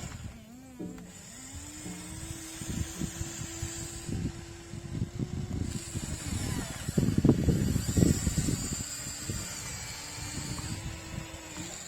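RC excavator's small electric motors whining at a steady pitch, stopping and starting again near the end as the machine is worked. Irregular low crunching of soil under the bucket and tracks runs beneath, loudest from about seven to eight and a half seconds in.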